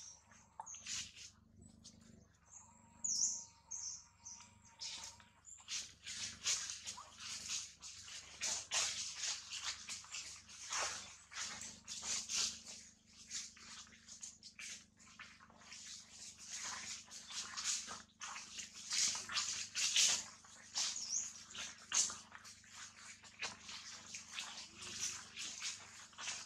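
Dense, irregular crackling and clicking throughout, like rustling among dry leaves, with a short high chirp about three seconds in.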